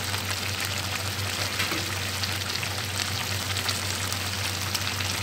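Thick onion-tomato masala sizzling in an aluminium kadai on the stove: a steady crackling hiss with a low hum underneath.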